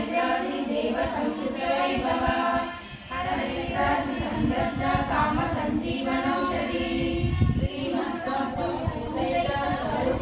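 A group of women chanting a devotional recitation to the goddess Lalita together in unison, with a short break about three seconds in.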